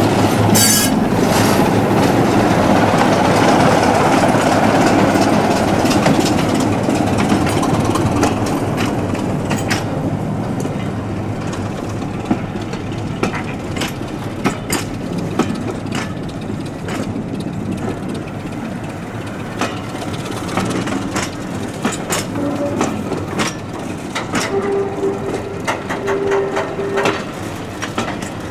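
BR Class 27 diesel locomotive passing with its Sulzer six-cylinder engine running, loudest over the first several seconds, then fading as a rake of BR Mk1 coaches rolls by with the wheels clicking and clattering over the rail joints.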